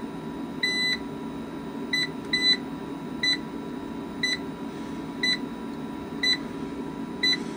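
EG4 6500EX inverter's control panel beeping as its buttons are pressed to set program 05 to "USE" and clear an error 61 communication fault. Short high beeps, a few close together in the first half, then about one a second, over a steady low hum.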